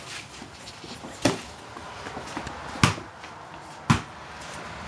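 Boxing gloves landing punches in sparring: three sharp thuds, the first about a second in and the last near the end, with softer knocks between them.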